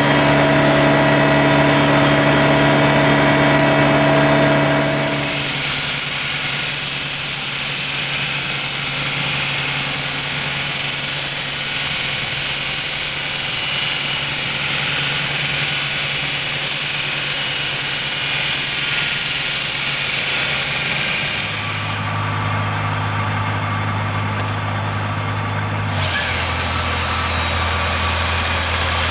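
Concrete-cutting equipment running steadily: an engine-driven power unit hums throughout, and a hand-held concrete saw cutting into the bridge wall adds a high hiss from about five seconds in. The hiss drops out for a few seconds near the end, then comes back.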